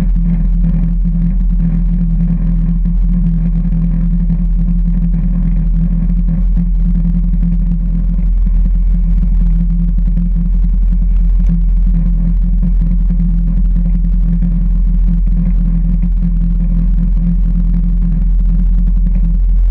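Piper Cherokee's piston engine and propeller running steadily with a loud, low drone that rises slightly about eight seconds in.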